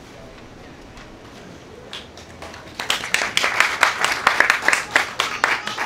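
Small audience applauding at the end of a poem, the clapping starting about two seconds in and thinning out near the end.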